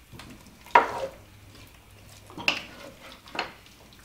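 Wooden spoon stirring chunks of raw potato, onion and celery in melted butter in a pot: three scraping strokes, one about a second in and two in the second half.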